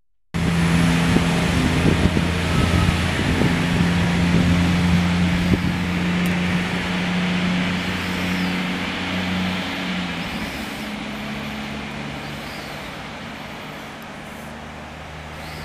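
Diesel railcar's engine drone as it pulls away, its note changing about ten seconds in and fading steadily as it leaves, over a steady hiss.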